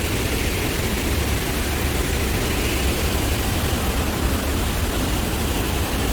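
Steady, even rushing noise of the Rhine Falls, a large waterfall, pouring nearby.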